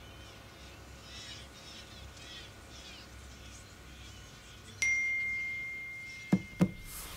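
Smartphone message notification: a single bright ding about five seconds in, its tone ringing on and fading slowly over two seconds. Two short clicks follow near the end.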